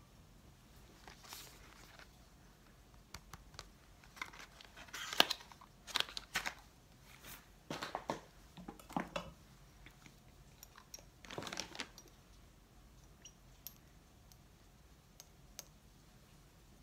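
Handling noises close to the phone: rustling and crinkling with sharp clicks and knocks, in several short bursts with quiet between.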